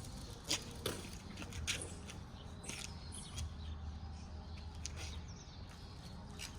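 Low steady hum with a few scattered light clicks and knocks.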